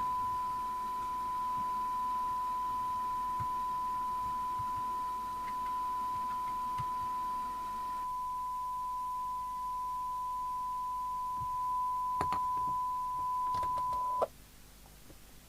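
A steady 1 kHz test tone from the receiver of an LCL Communicators NI440DX FM CB radio under alignment: the signal generator's test modulation being demodulated and played through the set. A few light clicks come near the end, and the tone cuts off suddenly shortly before the end.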